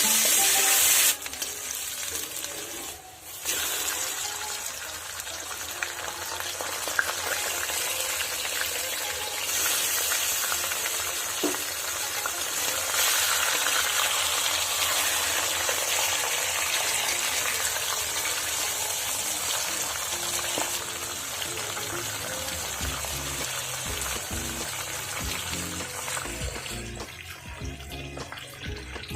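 Chicken pieces frying in hot oil in a pan, sizzling steadily, with faint background music. The sizzle drops out briefly about three seconds in and eases off near the end.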